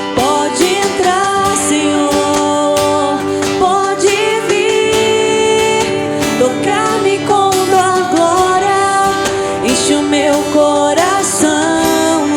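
Live worship-band music: acoustic guitars strumming chords with percussion, under a gliding female vocal melody without clear lyrics.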